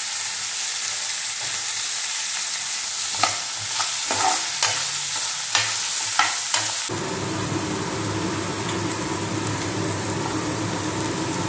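Chopped vegetables sizzling as they stir-fry in hot oil in a frying pan, with a spatula scraping through the pan several times in the middle. A low steady hum comes in about seven seconds in.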